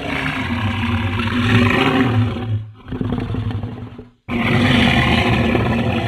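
Monster roar sound effects: three roars in a row, each cut off by a brief gap, with the third starting a little after four seconds in.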